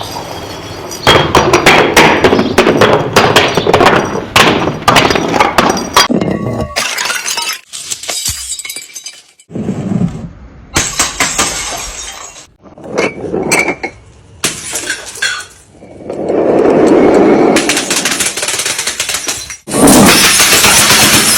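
Glass bottles being smashed and crushed: a dense run of shattering crashes and clinking shards for the first several seconds, then further separate bouts of crunching and breaking that start and stop abruptly.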